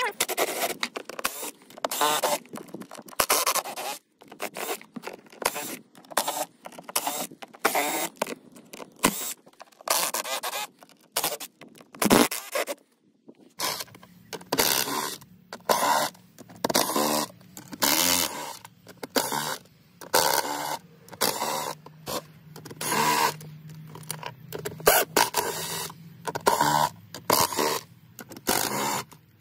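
Craftsman cordless driver running in repeated short bursts, backing stainless-steel screws out of plastic seat base plates, with a brief pause a little past halfway.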